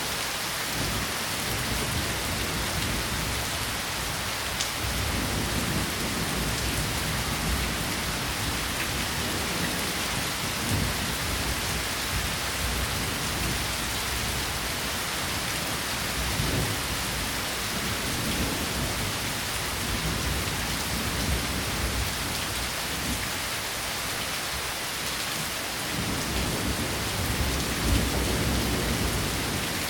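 Steady rain falling, an even hiss with some closer drops, and a low rumble swelling up now and then underneath.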